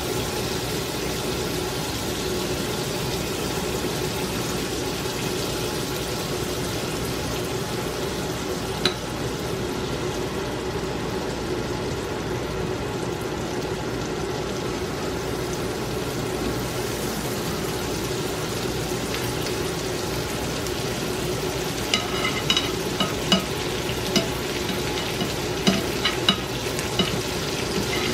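Pancakes frying in melted butter in a nonstick skillet: a steady sizzle. A single sharp tick comes about a third of the way through, and a run of light clicks and taps in the last several seconds as a spatula works at the pancakes' edges against the pan.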